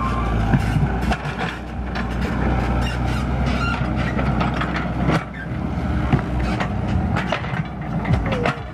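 Komatsu mini excavator's diesel engine running steadily under hydraulic load, with repeated knocks and clatters as the bucket digs and scrapes soil.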